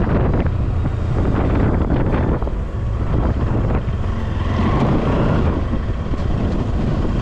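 Bajaj Pulsar NS200's single-cylinder engine running as the motorcycle rides slowly, with wind buffeting the microphone.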